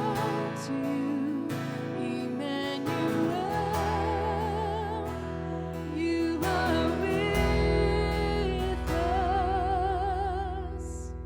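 Live church worship music: a vocalist sings slow, held notes with vibrato over sustained band accompaniment, and the music fades down near the end.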